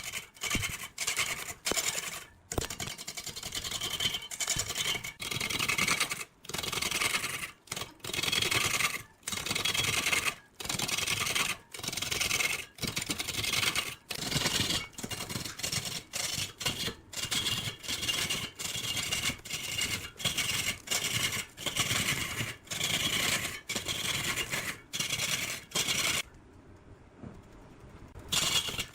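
Wood being scraped and cut by a hand-held tool in a rapid series of short, rasping strokes with abrupt breaks, going quieter for about two seconds near the end.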